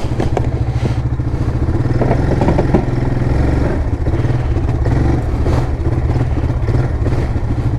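ATV engine running at low revs under load as the machine backs up through an icy, muddy water crossing, with a few short clunks about two to three seconds in.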